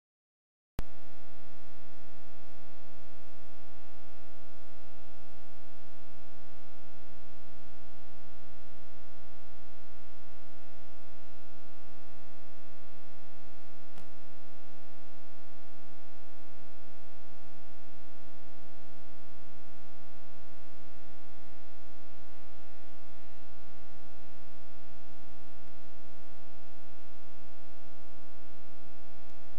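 Steady electrical mains hum with a stack of overtones, switching on abruptly about a second in and holding unchanged.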